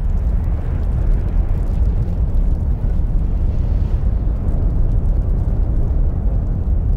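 A loud, steady low rumble with no distinct bangs or pops.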